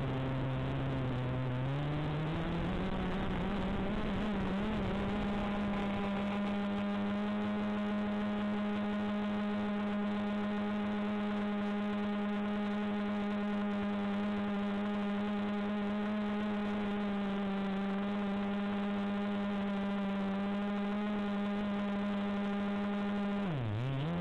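FPV drone's electric motors and propellers whining steadily. The pitch rises about two seconds in, holds level, then dips sharply and comes back up near the end as the throttle changes.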